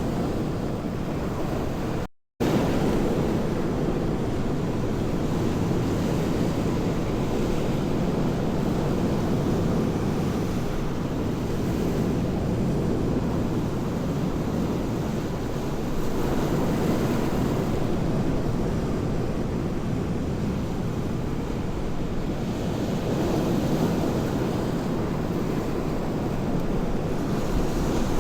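Sea surf washing steadily against the shore, with wind buffeting the microphone; the sound cuts out briefly about two seconds in.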